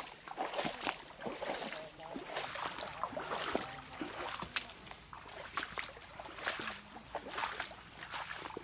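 River water splashing and sloshing, with many irregular small splashes over a steady hiss of moving water.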